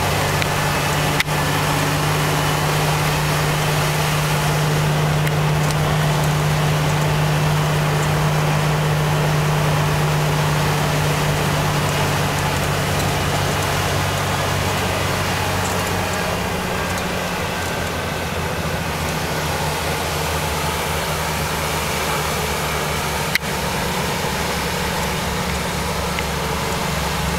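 Heavy truck's diesel engine running steadily, heard from the cab, over a constant hiss of road noise; a little past halfway the engine note shifts lower. Two brief knocks stand out, one near the start and one near the end.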